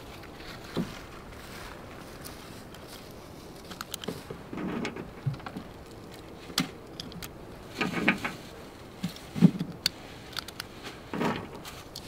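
Small, irregular metallic clicks of .22 rimfire cartridges being pressed one at a time into a rifle magazine, with short bursts of handling rustle.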